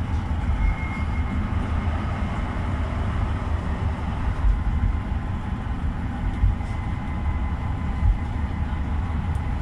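GEC-Alsthom TFS tram running along the track, a steady low rumble heard from inside the driver's cab, with a few faint clicks near the end.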